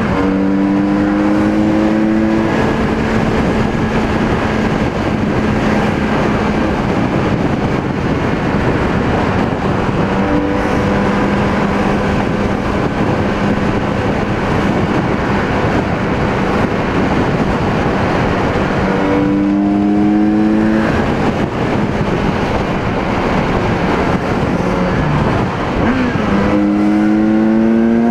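Kawasaki Z900RS's inline-four engine pulling in gear at highway speed, with heavy wind noise over the helmet microphone. The engine note climbs at the start, holds steady at cruise, then climbs again twice, about two-thirds of the way in and near the end.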